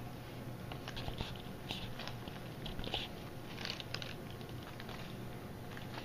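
Faint, scattered crackles and rustles from a tarantula enclosure at cricket feeding time, a handful of short ones in the first two-thirds, over a low steady hum.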